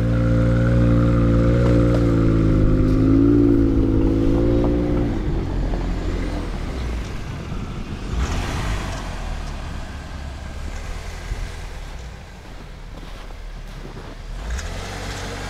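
BMW X5 E53's 3.0-litre petrol inline-six revving and held at steady revs under load for about five seconds as the SUV tries to pull out of a snowy rut, then dropping back to a low rumble. A brief rush of noise comes about eight seconds in.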